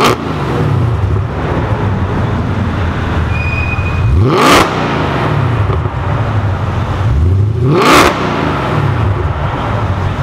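A car engine revved hard in a tunnel three times, each rev climbing quickly to a sharp peak and dropping back to a low idle between revs.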